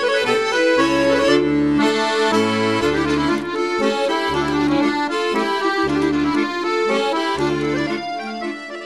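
Background music: an accordion tune of held notes over a bass line, fading out near the end.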